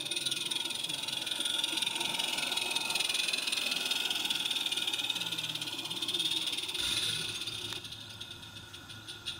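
A 16mm-scale live-steam locomotive running, with a steady steam hiss. Near the end the hiss fades to soft, evenly spaced exhaust chuffs.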